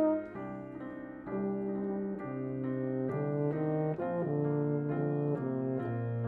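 Euphonium and piano playing a classical piece together. A loud held euphonium note breaks off just after the start, then a quieter passage follows with piano chords under a low line that steps downward.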